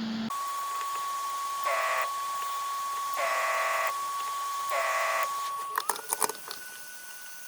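A steady high electronic tone with three short beeps over it, evenly spaced about a second and a half apart. Near the end the tone slides up to a slightly higher pitch and carries on more quietly, with a few sharp clicks as it changes.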